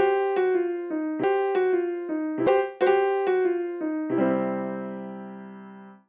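Short outro music jingle: a quick run of single keyboard notes, then a held chord about four seconds in that slowly fades out.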